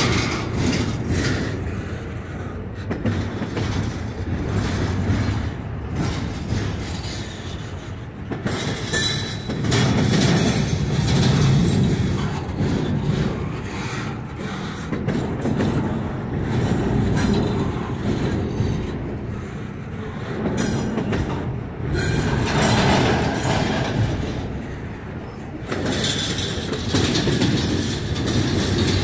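Double-stack container train's well cars rolling past at close range: a steady rumble of steel wheels on rail, swelling and easing every few seconds as cars go by, with wheel clicks over rail joints.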